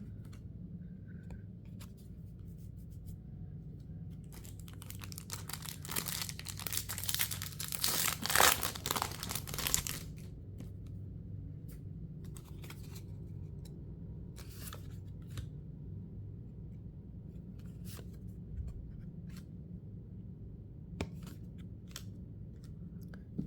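A foil Pokémon mini booster pack being torn open: several seconds of crinkly tearing near the middle, followed by shorter rustles and light clicks as the cards are handled. A low, steady hum runs underneath.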